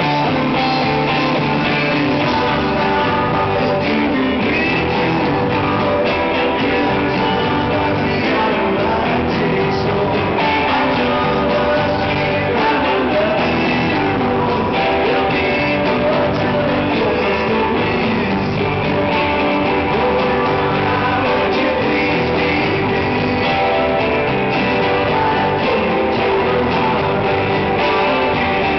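Live rock band playing at full volume: strummed electric guitar over bass and drums, with a male lead vocal singing.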